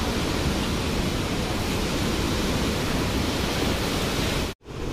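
A flood-swollen river in spate rushing over submerged rocks, a steady even wash of water noise. It cuts out abruptly for a moment near the end, then resumes.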